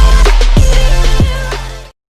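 Electronic background music with heavy bass and a steady beat, fading out near the end.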